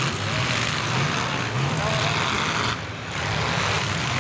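Demolition derby pickup trucks' engines running hard at high revs, with a brief drop in level about three seconds in.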